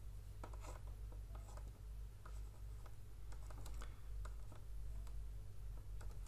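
Stylus tapping and scratching on a tablet's writing surface while hand-writing, a scatter of short light clicks and scrapes, over a steady low hum.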